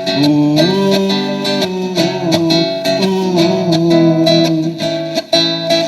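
Instrumental break of a festa junina song: a guitar melody over a steady percussion beat, with no singing.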